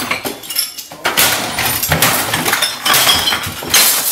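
Things being smashed: a rapid run of loud crashes and bangs, with glass clinking and breaking, as a man beats objects with a long stick.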